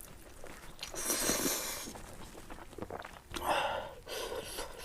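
A person eating 3X spicy ramen noodles close to the microphone, making three noisy, airy sucking sounds, the longest about a second in.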